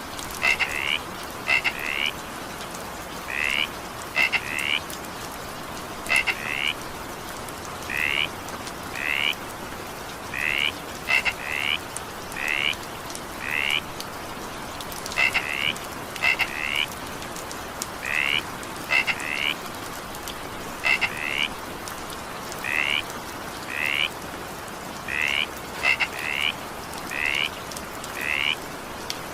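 Frogs calling: short, rhythmic calls repeated about once a second, often in quick pairs or threes, over a steady hiss of rain.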